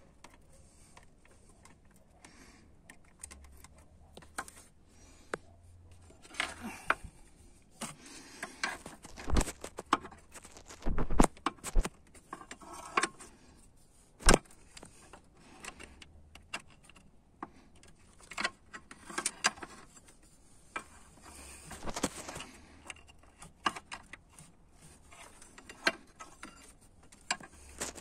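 Open-end steel wrench clicking and clinking against the new oil pressure sensor and the metal around it as the sensor is tightened, in short irregular strokes. There is a cluster of louder clanks about ten seconds in.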